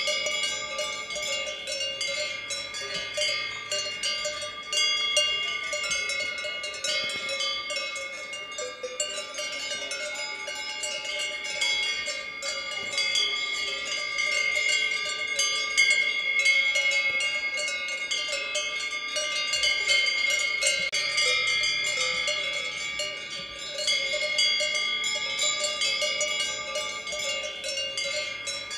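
A grazing herd's cowbells clanging continuously and unevenly, many bells of several pitches ringing over one another.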